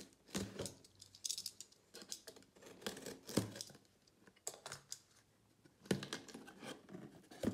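Snap-off utility knife slicing along the taped seam of a cardboard box, then the cardboard flap pulled open: a string of short scratchy cuts, scrapes and clicks.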